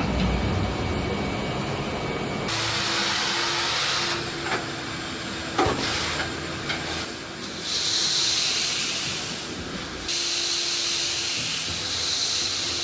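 Pressure washer spraying in on-and-off stretches of loud hiss, with a faint steady hum underneath and a couple of short knocks.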